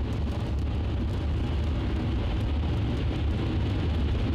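Car driving in the rain: a steady low rumble of engine and tyres with a hiss of water, unchanged throughout.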